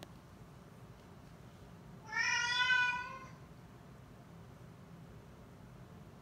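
Siamese cat giving one drawn-out meow about two seconds in, lasting about a second: begging to be let outside.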